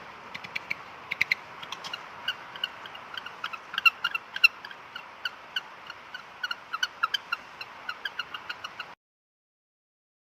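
An animal's rapid, short, high chirping calls, several a second over a steady hiss, cutting off suddenly near the end.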